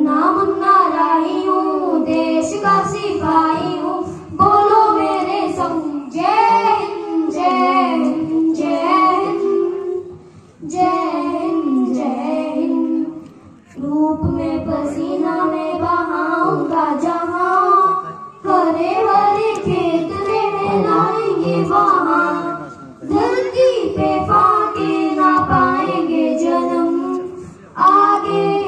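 A young girl singing solo into a microphone, unaccompanied, in phrases of a few seconds with short breaks for breath between them.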